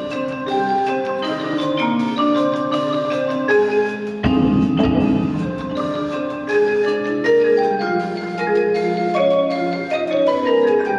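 Percussion ensemble playing a fast piece on tuned mallet instruments, many short struck notes in overlapping melodic lines. A loud low hit with a rumbling ring comes about four seconds in.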